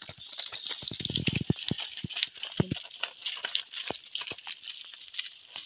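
Live fish flapping inside a mesh net fish trap as it is handled: an irregular patter of slaps and rattles, thickest about a second in.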